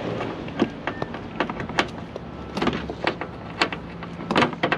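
Irregular sharp clicks and light knocks of headlight and car-body parts being handled and fitted, about six in all, over a steady low hum.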